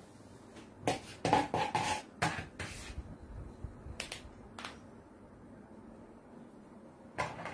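Metal palette knife working icing on a cake: a quick run of short scrapes and knocks about a second in, two more around the four-second mark, and another near the end.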